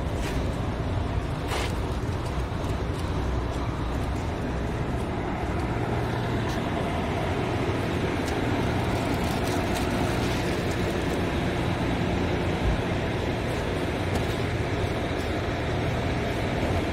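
Heavy truck's diesel engine idling steadily, a low even hum.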